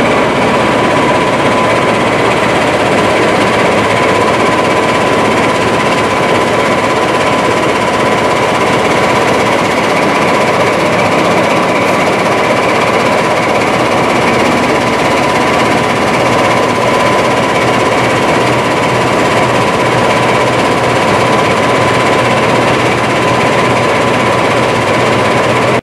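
Heritage diesel locomotive engine running steadily close by: a dense, even clatter with a thin steady whine over it.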